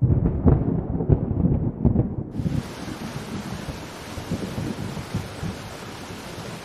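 Loud, low rumbling with heavy thumps for about two seconds, cutting abruptly to a steady hiss of rain and wind noise with occasional soft low knocks.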